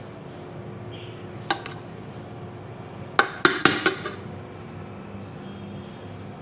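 Metal spoon knocking and clinking against the rice cooker's metal inner pot while stirring cooked biryani rice: two knocks about a second and a half in, then a quick run of about five ringing clinks around three to four seconds in.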